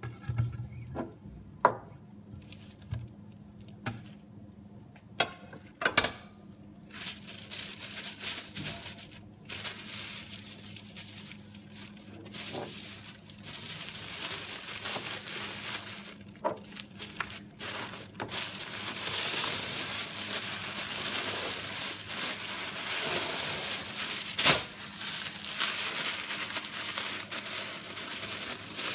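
Knocks and clicks as a paper roll on its metal shaft is fitted into a Geami WrapPak M dispenser, then continuous rustling and crinkling of paper as white tissue and expanded kraft honeycomb wrap are pulled and handled, louder in the second half, with one sharp click a few seconds before the end.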